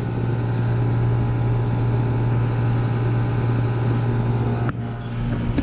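York YCG 3-ton central air conditioner condensing unit running: a steady hum from its Copeland scroll compressor under the whirr and rush of the condenser fan. About a second before the end the higher hiss drops away abruptly.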